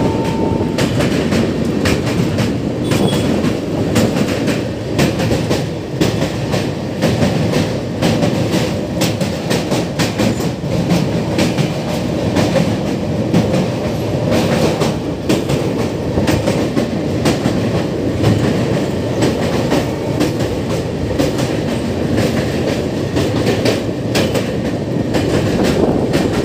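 Janshatabdi Express passenger train running at speed, heard from beside the coach: a steady rumble with a constant run of clickety-clack from the wheels over rail joints as it crosses a steel truss bridge.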